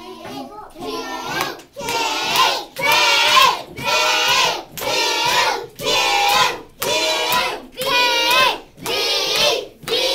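A class of young children chanting together in a steady rhythm, one loud phrase about every second, as they recite the alphabet sound-spelling cards, with hands clapping along.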